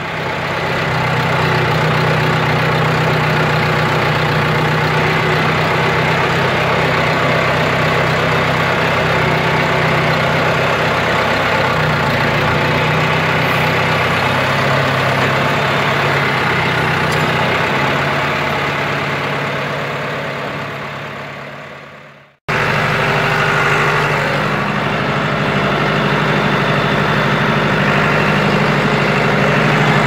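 John Deere farm tractor engine running steadily at a loud, even level, heard from the driver's seat. Its pitch steps slightly about 12 seconds in, and the sound drops out briefly about three-quarters through before the engine runs on.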